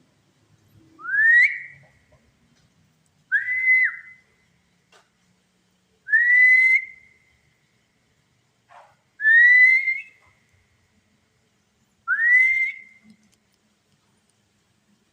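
Five short whistles, evenly spaced about three seconds apart, each sliding up in pitch and then holding. The ghost hunter takes such sounds for spirits answering with sound only.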